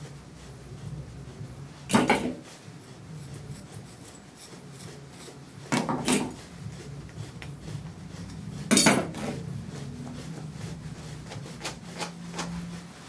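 Grooming comb and brush rasping through a dog's matted curly coat, with grooming tools clattering against the table a few times: about two seconds in, twice around six seconds, and near nine seconds. A faint low hum runs underneath.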